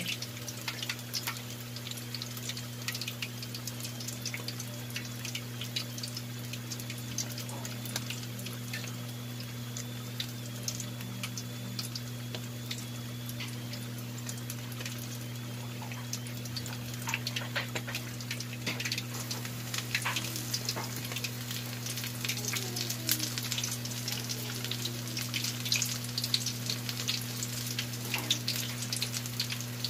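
Pork leg deep-frying in hot oil in a wide pan, the oil crackling and spitting in quick pops as the skin crisps in the oil's remaining heat after the flame is switched off. The pops grow thicker after about halfway, over a steady low hum.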